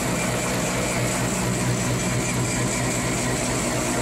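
Grinder mixer running at a steady, even drone while its auger unloads feed with the gate wide open. The tank is packed full, so the feed is slow to start pouring out.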